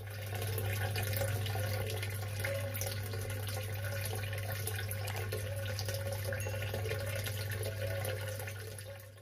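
Water pouring steadily into water, like a running tap, over a steady low hum; it fades in at the start and fades out near the end.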